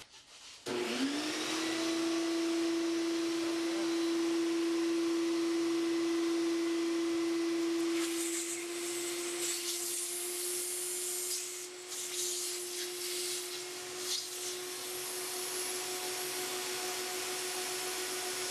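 Homemade wooden inline four-cylinder air engine running on a motor-driven air supply: a steady motor hum with rushing air that starts and spins up about a second in. From about eight seconds on, a faint rapid rattle of the running engine joins it.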